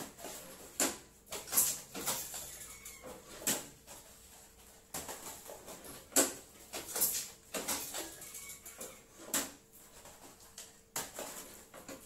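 Irregular clacks and rustling of plastic from hand work at a small packing machine, a sharp knock every second or two, over a faint steady hum.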